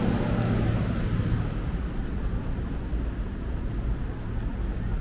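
City street traffic: a low, steady engine rumble from vehicles close by, loudest in the first second and a half, then easing.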